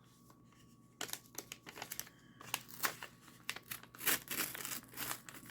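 A mailed seed package being torn open by hand, its packaging crinkling and crackling in quick irregular snaps that start about a second in.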